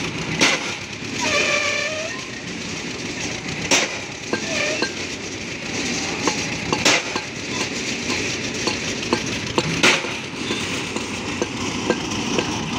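Pile-driving rig's hammer striking a pile at a slow, even pace, four sharp metallic clanks about three seconds apart, over the steady running of the rig's engine.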